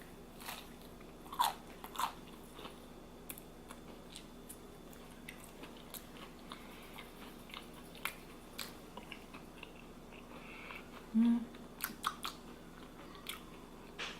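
A person eating close to the microphone: chewing and biting with wet mouth clicks. The loudest bites come about a second and a half and two seconds in, and there is a brief low hum about eleven seconds in.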